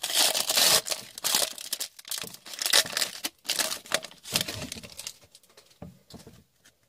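Foil wrapper of a hockey card pack being torn open and crinkled by hand, in bursts of tearing and crinkling that thin out and fade near the end.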